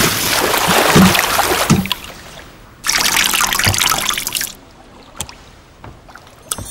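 Water sound effects: a splashing wash that dies away, then, about three seconds in, water streaming out as a soaked beret is wrung out by hand, followed by a few scattered drips.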